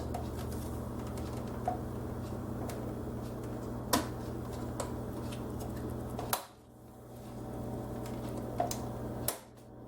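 Stamped-metal motherboard I/O shield being pressed into a PC case's rear opening, giving several sharp clicks, the loudest about four and six seconds in, as it snaps into place. Under them runs a steady low hum.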